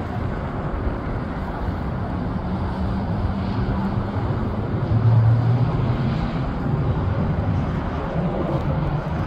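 Twin-engine jet on its landing approach passing overhead, a steady jet-engine rumble with a low hum that swells to its loudest about five seconds in.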